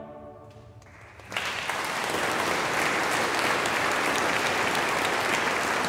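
The choir's final chord dying away in the church's long reverberation, then an audience breaking into applause about a second and a half in, which then holds steady.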